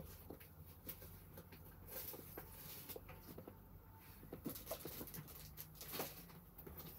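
Faint scattered clicks and light rustles of small craft items being handled and sorted, over a low steady hum.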